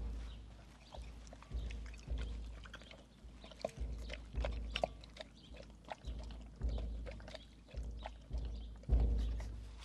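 Large shaggy dog eating meat from a bowl: wet chewing and slurping clicks, with a series of low thumps.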